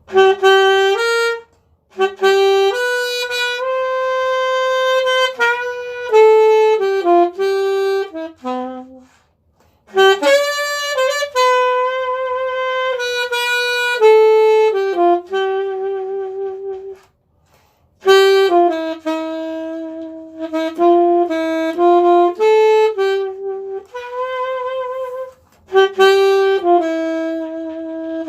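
Background music: a solo saxophone playing a slow melody in phrases of held notes, with short pauses between phrases.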